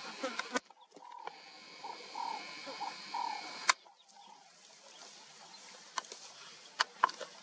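A run of short croaking animal calls, with a few sharp snaps or clicks and a steady high buzz behind them.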